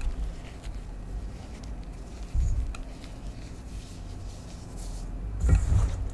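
Hands squeezing and crumbling clumps of pink gym chalk in a stainless steel bowl, with a soft crunching texture and low thuds about two and a half seconds in and again near the end.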